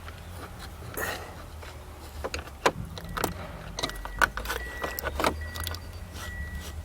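Irregular sharp metallic clicks and scrapes of a hooked pick rod probing inside the steering column, and keys on a ring jangling, while it feels for the ignition lock cylinder's release button. A faint high steady tone comes in about four seconds in.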